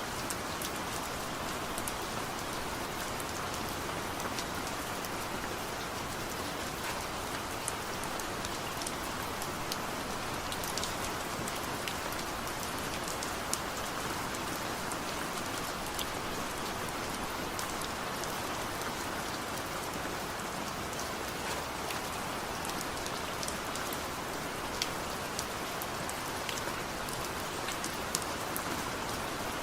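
Steady rain falling, a constant patter with scattered individual drops ticking on a surface. No thunder.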